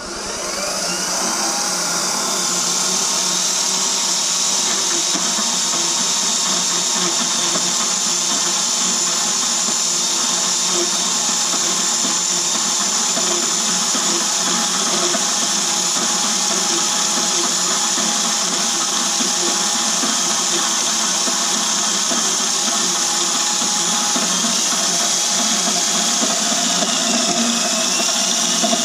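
Burley R2103 bandsaw running steadily after coming up to speed at the very start: a continuous machine whir with a strong high-pitched hiss.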